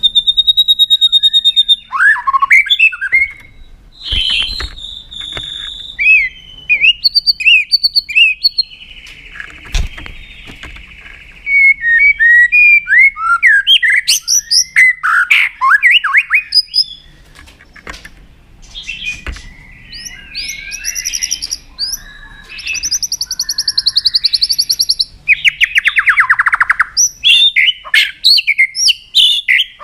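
White-rumped shama (murai batu) singing a long, varied song: clear whistles, fast sliding notes, trills and buzzy, rattling phrases following one another with short pauses, plus a few faint clicks.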